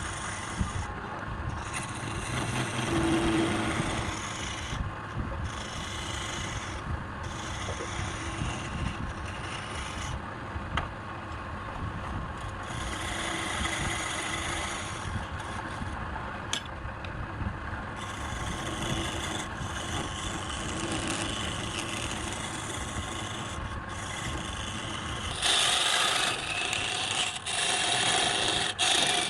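Wood spinning on a lathe being scraped and cut by a turning tool: a continuous rough rasping. It gets louder and harsher near the end.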